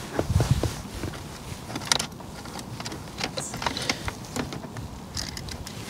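Scattered light knocks and rustling from someone handling fishing tackle, over a low steady rumble, with one sharper click about two seconds in.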